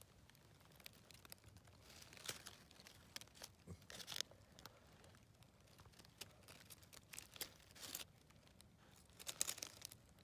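Faint, scattered crackling rustles of dry oak leaf litter being disturbed, a few short crinkles against near silence, the loudest about four seconds in and again near the end.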